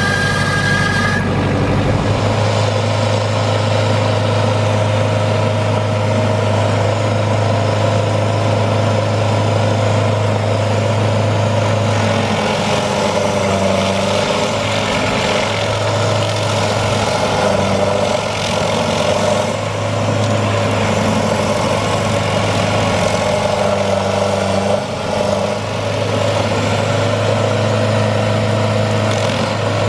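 Rayco diesel stump grinder running hard with its cutter wheel chewing into a palm stump. The engine note is steady, shifting briefly a few times as the cutter bites.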